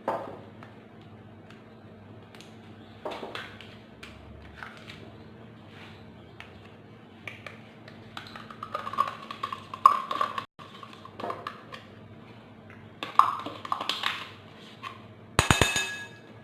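Kitchen handling sounds: light knocks and scrapes of bowls, containers and utensils, with a sharp ringing clink of a dish near the end.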